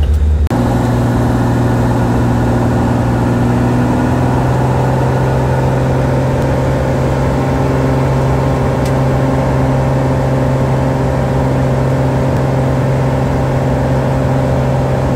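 Cessna floatplane's piston engine and propeller running at a steady drone, heard from inside the cabin.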